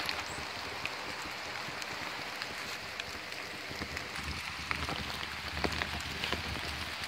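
Steady rain falling in woodland, with scattered drops ticking, likely on the umbrella overhead. Footsteps on wet leaf litter come in, with a low rumble from about halfway through.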